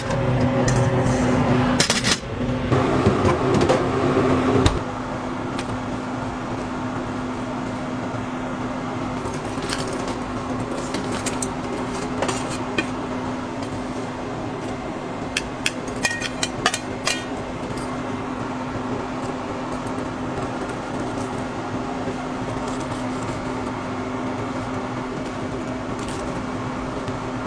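Steady hum of a kitchen appliance's motor or fan, with a louder stretch of clatter and noise in the first five seconds and a few light clicks of utensils around the middle. The hum cuts off near the end.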